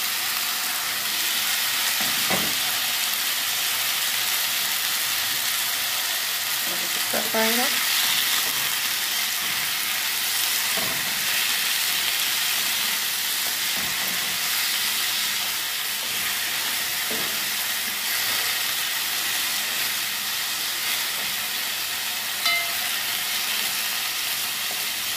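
Chopped pumpkin, carrot, onion and sweet pepper sizzling as they fry in hot oil and butter in a pot, stirred with a spoon, with a few knocks and scrapes of the spoon against the pot.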